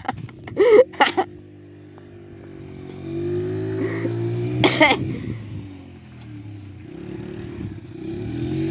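Small youth ATV engine revving up, easing off about six seconds in, then revving again near the end. Short bursts of a person's voice just after the start and a loud one about halfway through.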